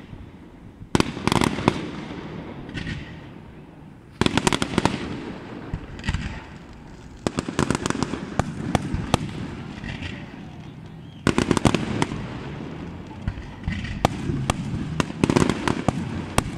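Aerial fireworks bursting, with clusters of rapid sharp crackling pops every few seconds over a continuous rumble.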